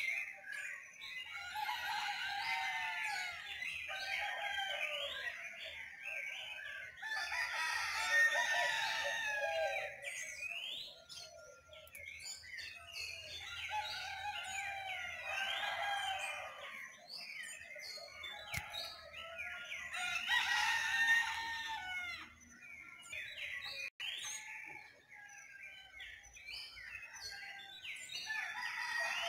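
Roosters crowing again and again, a long crow about every six seconds, over a dense dawn chorus of many small birds chirping and whistling.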